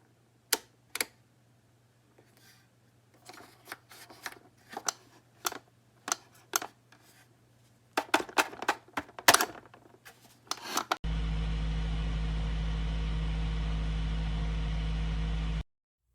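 Irregular sharp clicks and small knocks of handling a small plug-in electric space heater, then a loud, steady electrical hum that starts abruptly about eleven seconds in and cuts off suddenly about four and a half seconds later.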